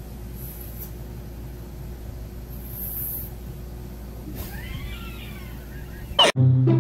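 Kitten mewing faintly about two thirds of the way in, over a steady low hum. The sound cuts off with a sharp click near the end.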